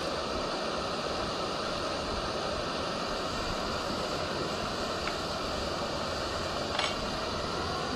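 Gas canister camp stove burner hissing steadily under a pot of water that is nearly at the boil. A faint click comes about five seconds in and a brief clink near the end.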